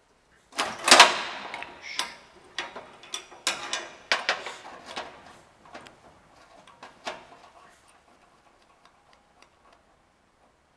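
Steel wrenches clinking and knocking against a brass flare nut on a solenoid valve fitting as the nut is worked onto copper tubing. It is a quick, irregular series of metal clicks, loudest about a second in, thinning to faint ticks after about seven seconds.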